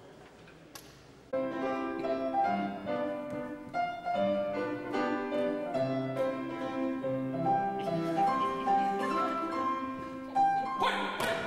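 After a second of faint room sound, a grand piano starts playing a classical-style piece of quick, short notes. It grows louder and fuller near the end.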